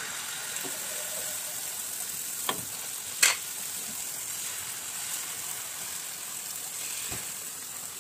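Thin jaggery-and-wheat-flour pooray batter sizzling in hot oil on a flat griddle (tawa), the steady frying hiss starting as the batter is poured. A couple of sharp clicks about two and a half and three seconds in.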